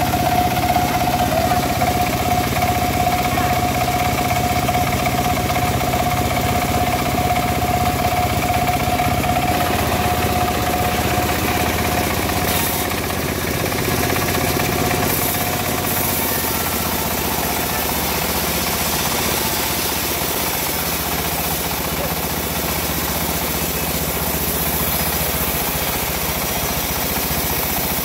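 Engine of a wood-cutting saw running steadily, with a steady high tone over it for the first ten seconds or so.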